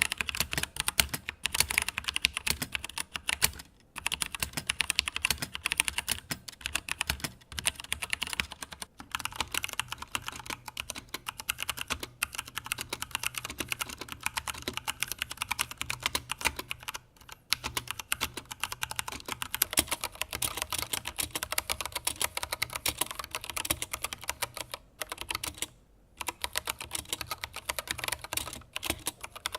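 Steady typing on mechanical keyboards with brown tactile switches, played as a comparison of the Drevo Gramr's 55 g Outemu browns against Cherry MX Browns and Gateron Browns. The passages follow one another with a few brief pauses between them.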